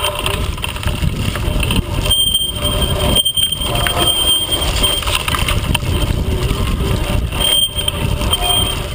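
Constant rumble and rattle of a bike ridden fast over rough forest-trail ground, with the mount-camera shaking and wind buffeting the microphone.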